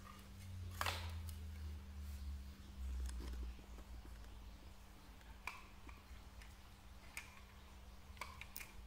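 Scattered sharp clicks and knocks of the emergency lamp's plastic housing and parts being handled on a table, the loudest about a second in, with dull low bumps in the first few seconds. A faint steady low hum runs underneath.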